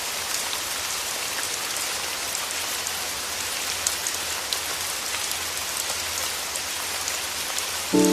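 Steady rain falling, an even hiss with scattered small drip ticks. A few music notes come in right at the end.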